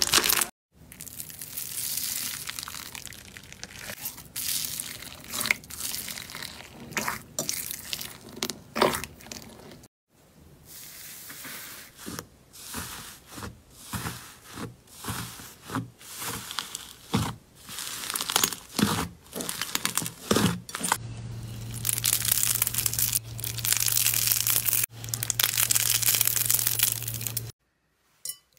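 Hands squeezing, pressing and poking slime: wet squishing broken by many short sharp pops and longer stretches of dense crackling. The sound stops briefly about ten seconds in and falls silent just before the end.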